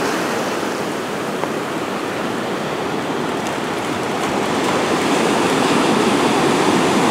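Ocean surf washing onto the shore, a steady rushing noise that grows a little louder near the end.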